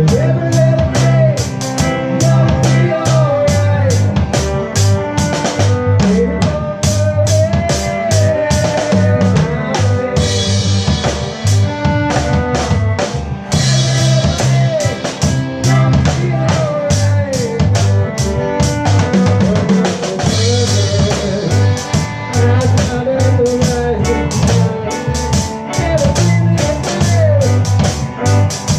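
Live band playing an instrumental reggae passage: drum kit with regular snare and rimshot strokes, a bass line and a lead melody that bends in pitch. Cymbal washes come in about ten seconds in and again around twenty seconds.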